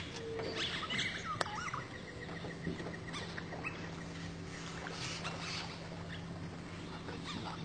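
Scattered wild bird calls and chirps over a steady low hum, with a run of quick even pips and a single sharp click early on.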